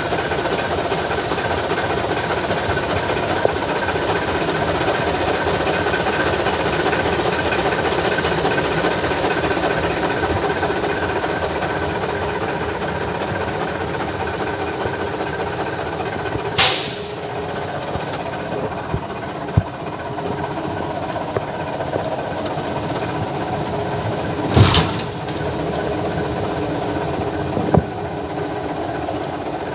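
Heavy-duty diesel engine of a 1990 Ford L9000 dump truck idling with a steady clatter. Two short, loud bursts of noise come about eight seconds apart in the second half.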